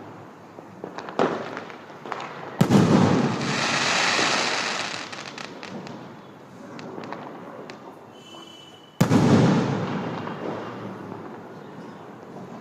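Aerial sky-shot fireworks bursting: two loud bangs about six seconds apart, each followed by a long rolling echo. Smaller pops and a crackling hiss come between them.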